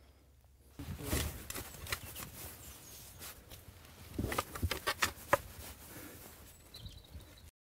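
Spade digging into compost in a wooden bin: short crunching scrapes and stabs of the blade, starting about a second in, with a busier spell around four to five seconds in.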